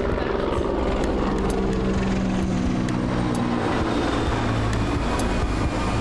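Helicopter flying over, a steady drone of rotor and engine whose pitch slowly falls as it passes.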